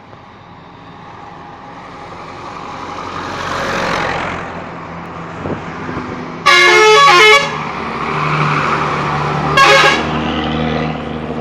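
Bus traffic noise swelling and fading as a vehicle passes close by. Then an Indonesian intercity bus's 'telolet' multi-tone musical horn plays a loud stepping tune for just under a second, with a second short blast about three seconds later over the idling engine.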